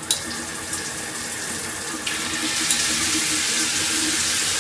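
Water spraying from a Hibbent handheld shower head while its spray settings are demonstrated; about two seconds in, the spray changes to a louder, harsher hiss as another setting comes on.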